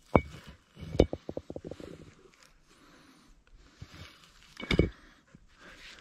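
A dog close by, panting in short quick runs of breaths, with a light metallic clinking like collar tags.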